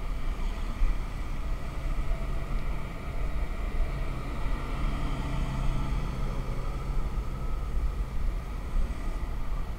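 Steady engine and road noise heard from a moving vehicle in traffic, with a low rumble throughout. An engine note stands out more clearly for a few seconds in the middle.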